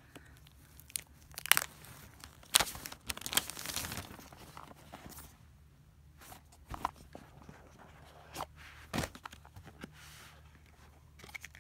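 Plastic shrink wrap on an iPhone 7 box being torn and crinkled off, a dense run of crackles for a few seconds, then scattered taps and scrapes of hands handling the cardboard box and easing its lid off.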